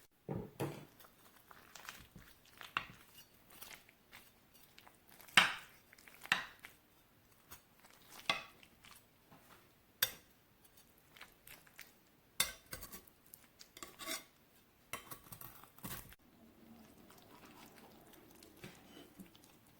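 A utensil clinking and scraping against a baking dish as oven-baked pasta is cut and served, in scattered clicks and knocks, the loudest about five seconds in.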